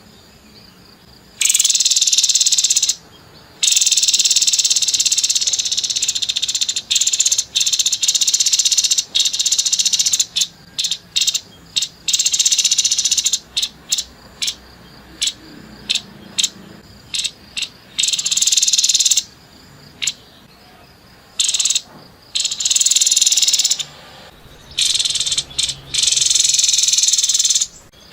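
Grey-headed babbler (tepus kepala abu) giving harsh, buzzy rattling calls in bursts of one to three seconds, with a run of short clipped notes in the middle.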